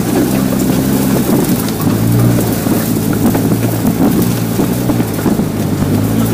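Open off-road vehicle's engine running steadily as it drives through tall grass, with a continuous rushing noise of wind and motion over it.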